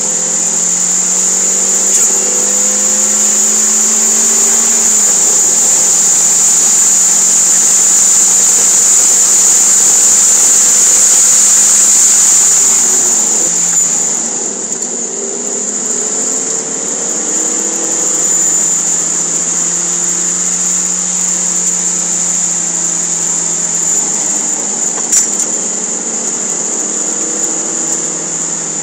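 Toyota MR2 Spyder's 1.8-litre four-cylinder engine heard from inside the cabin at track speed, its note rising for the first few seconds under acceleration. It stays loud until about halfway through, when it drops back as the car slows for a corner. A steady high hiss runs underneath.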